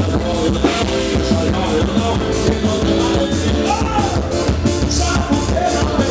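Band music with a steady beat of about four strokes a second and a voice singing over it.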